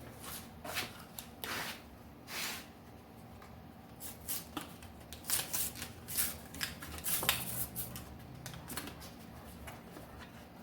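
Hands handling a strap wrench: irregular rustling with short light clicks and ticks, busiest in the middle.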